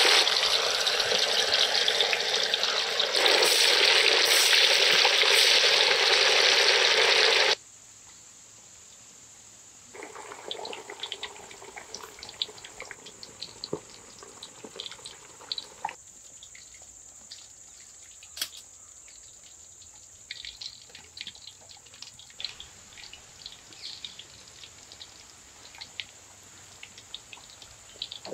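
Fish deep-frying in a pan of hot oil. For the first seven or so seconds there is a loud, dense sizzle as the oil foams hard around freshly added fish; it cuts off suddenly. After that comes quieter, scattered crackling and popping of the oil.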